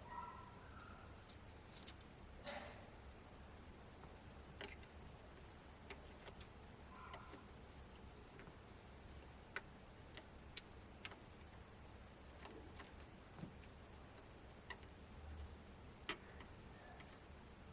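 Faint, irregular clicks and light taps of small tools and parts being handled during a tablet's disassembly, over a low steady hum.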